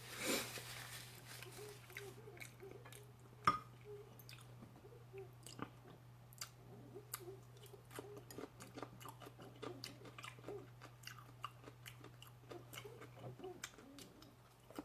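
A person chewing food close to the microphone: a short noisy burst in the first second, then faint scattered wet mouth clicks with a sharper click about three and a half seconds in, over a steady low hum.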